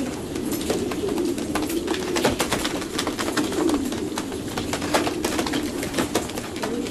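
Racing pigeons cooing, a low wavering coo that goes on without a break, crowded in a plastic transport basket, with many sharp clicks and taps scattered through it.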